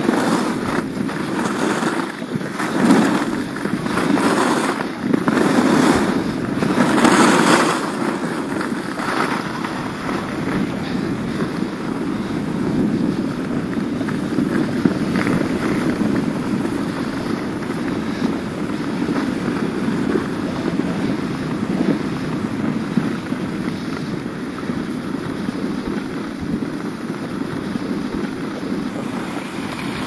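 Skis sliding over a groomed snow piste at speed, with wind rushing over the microphone. For the first several seconds the scraping swells about once a second with each turn, then it settles into a steady rush.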